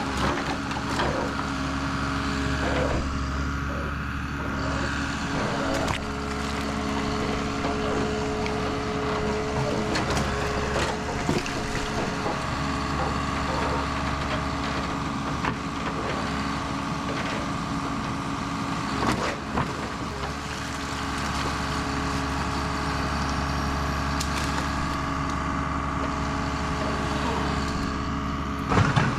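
Forestry log forwarder's engine running steadily, a low hum with a higher steady whine, while brush and branches knock and crack as they are handled.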